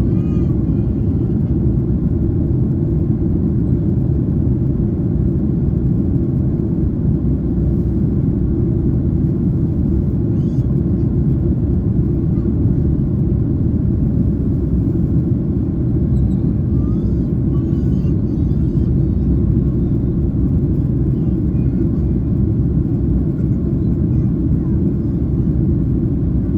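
Steady low rumble inside the cabin of a Boeing 767-300ER in flight: engine and airflow noise.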